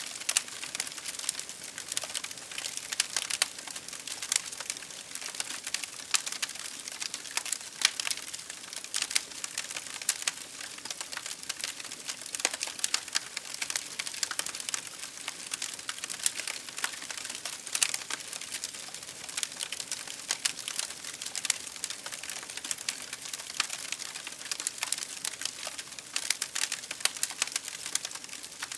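Campfire firewood crackling: a constant run of sharp, irregular snaps over a soft hiss.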